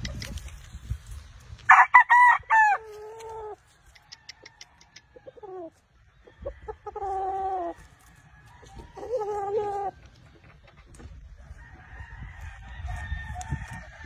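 Gamefowl roosters crowing. The loudest crow comes about two seconds in, opening high and falling to a long lower note, and two more crows follow around seven and nine seconds in.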